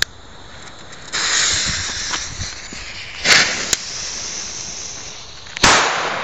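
A torch lighter clicks, then the firecracker's pre-burner hisses steadily as it sprays a fountain of sparks, surging loudly for a moment partway through. Near the end the firecracker goes off with a single sharp bang.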